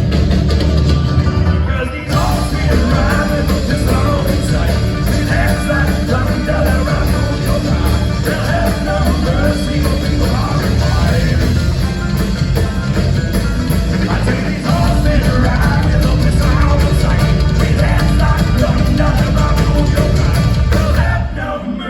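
Loud live "thrash grass" band music, a metal-leaning rock sound with heavy drums and bass and busy lead lines, played at full volume; the band drops out briefly near the end.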